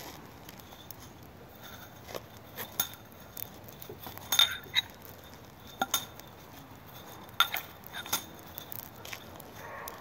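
Spinning coal chucks, metal chains and wire cages holding burning lump charcoal, clinking and ticking irregularly. About a dozen sharp metallic clinks are scattered through the stretch, the loudest around the middle.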